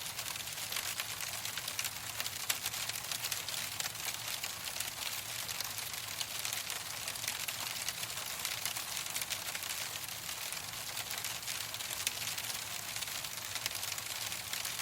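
Hailstones falling thick and steady, a dense, unbroken spray of small sharp ticks as they strike a hard surface.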